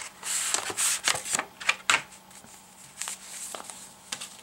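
Paper rustling from a paper envelope being opened and printed leaflets and a paper CD sleeve pulled out, with quick crisp clicks and crackles. The sound is busiest in the first two seconds, then comes in a few scattered touches.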